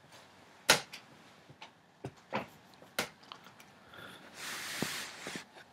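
Close-miked handling noises: a sharp click just under a second in, a few softer clicks, then about a second of hissy rustle or breath near the end.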